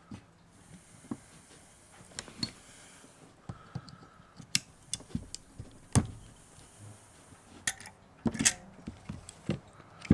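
Irregular clicks, taps and light clatter of hard plastic and metal parts being handled while taking apart a lithium-ion power-tool battery pack, with a few sharper knocks around six and eight and a half seconds in.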